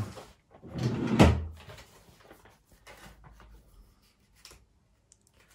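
A dull thump a little over a second in, then faint small knocks and rustling as sheets of music are handled.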